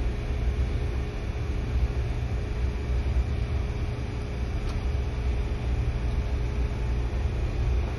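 Steady low drone of running machinery in a ship's engine room, with one faint tick partway through.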